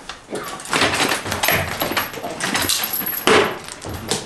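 Irregular small metal clinks and rattles with handling rustle: the metal tattoo clamp and its number digits being handled.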